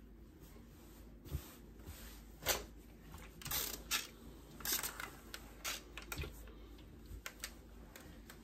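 Fabric being handled and pressed with an iron on an ironing board: short rustles and light knocks of the iron, scattered a second or so apart.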